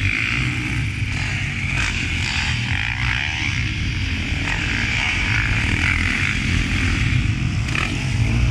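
Several motocross dirt bikes riding on a track, their engines revving and easing off and overlapping into a steady, continuous drone.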